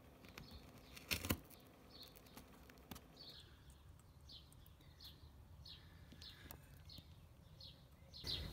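Faint bird chirping: short falling chirps repeated about twice a second. A single sharp click about a second in stands out above them.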